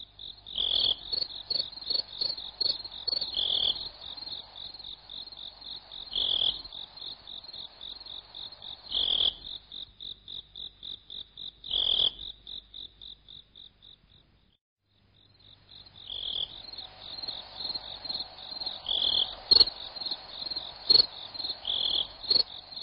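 A night chorus of crickets and frogs: a rapid high-pitched pulse several times a second, with a louder call about every three seconds. It fades out about two-thirds of the way in and comes back a second later, with a few sharper clicks near the end.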